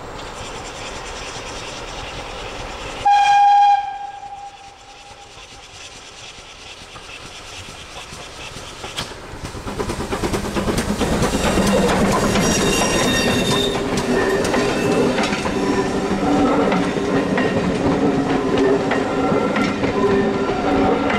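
A steam locomotive's whistle gives one short, loud blast about three seconds in. Then the steam train and its coaches come up and run past close by, the wheel-and-rail noise growing loud from about ten seconds in.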